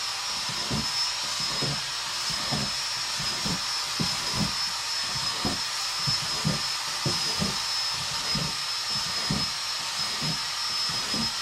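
Cordless drill with an 1/8 inch bit running at a steady high whine while it is held against the bottom of a plastic storage bin. A rapid run of low knocks, about two or three a second, comes as the bit is pushed through the plastic, hole after hole.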